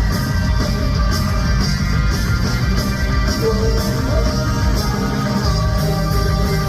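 Live rock band playing an instrumental passage of a pop-rock song, with guitar over bass and drums and no vocals.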